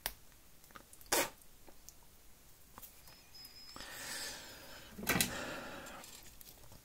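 A few sharp clicks and knocks of small objects being handled on a workbench, with a soft hissing noise of about two seconds in the second half.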